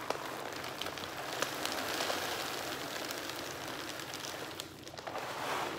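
Dry cat food kibble pouring from a foil bag into a plastic container: a steady, dense pattering rattle of pellets that thins out near the end.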